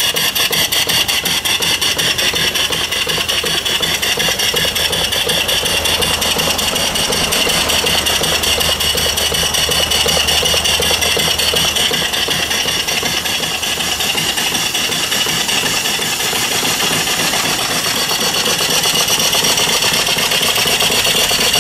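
Single-cylinder vertical live steam engine running steadily on boiler steam at about 200 to 300 rpm: a fast, even beat of exhaust chuffs over a constant steam hiss.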